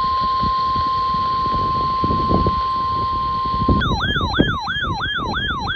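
NOAA Weather Radio warning alarm tone, a steady single tone near 1 kHz, switching about four seconds in to an electronic warbling siren tone that rises and falls about three times a second, over a low rumbling background noise. The alarm signals that a tornado warning is about to be read.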